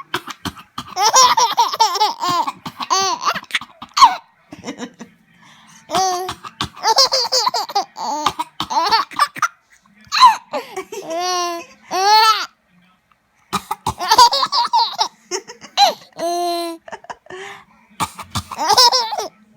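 Baby giggling and laughing in about five high-pitched bouts of laughter with short pauses between them.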